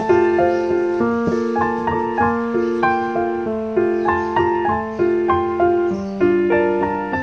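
Soft background piano music, notes struck at an even, gentle pace of about two a second, each ringing and fading away.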